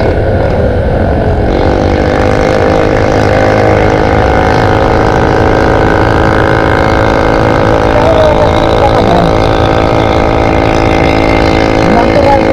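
Yamaha motor scooter running under way with a steady droning engine hum that firms up about two seconds in, under heavy wind rumble on the microphone.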